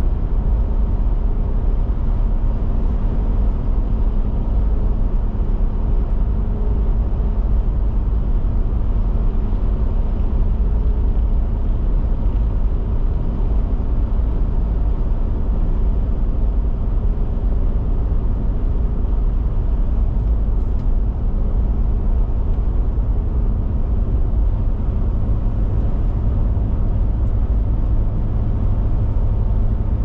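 Steady road noise of a car cruising at highway speed, heard from inside the cabin: a low rumble of tyres and engine. The low rumble grows a little louder near the end.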